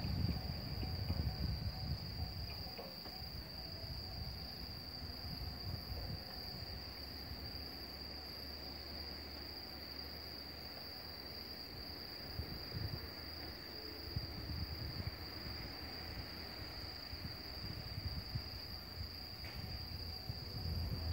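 Crickets chirring in one steady, unbroken high note. A low rumble from a departing train fades away over the first few seconds.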